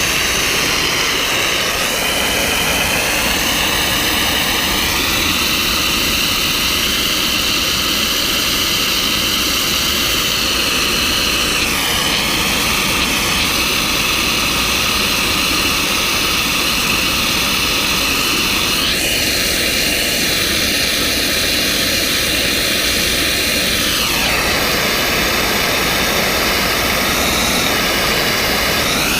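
Hot-water pressure washer running steadily, engine and pump with the hiss of spray, its pitch stepping up or down a few times as the load changes.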